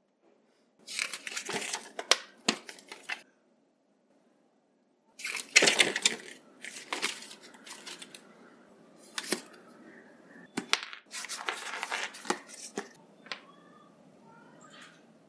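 Plastic wrapping and paper packaging handled by hand, rustling and crinkling with sharp clicks and taps. It comes in two spells with a short silence between, then tapers off near the end.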